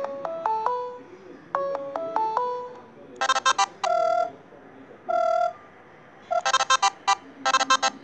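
Stock Android ringtones previewed through a Celkon CT-7 tablet's speaker. First a short four-note electronic phrase plays twice, then a second ringtone of rapid bleeps and held tones, also twice.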